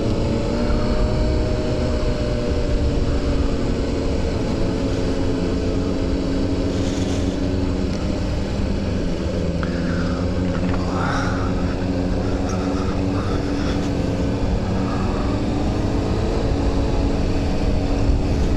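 Honda CBR sport motorcycle's engine running at steady cruising revs while riding, its pitch rising and falling gently a few times. Wind rumbles over the handlebar-mounted microphone.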